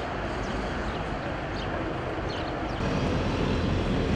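Diesel engines of heavy construction machines running in a steady drone, getting louder about three seconds in.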